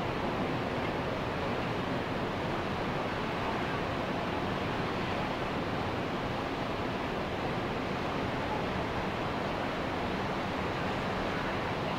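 Ocean surf washing on a beach as a steady, even rush of noise without distinct breaks.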